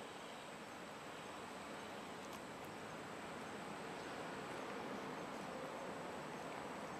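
Steady outdoor background hiss with a faint high-pitched whine, and a couple of faint clicks about two and a half seconds in.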